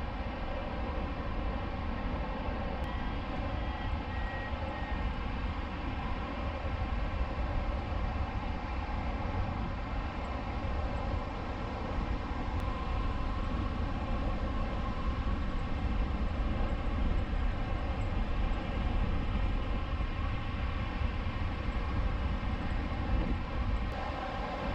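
Wind rushing over the microphone of a camera mounted on a hang glider in flight: a steady, buffeting low rumble with a constant humming drone over it.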